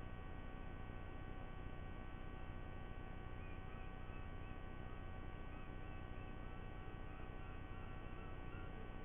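Steady low electrical hum with a few faint steady tones above it. From a few seconds in, faint short chirps repeat about every half second.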